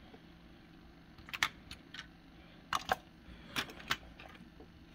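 Small die-cast model cars being handled and set down: a few sharp, light clicks of metal and plastic, coming in rough pairs, over a faint steady hum.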